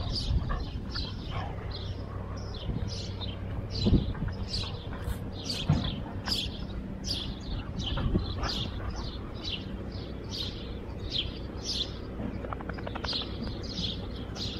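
A small bird chirping over and over, two or three short high chirps a second, with a low rumble and a few dull thumps underneath.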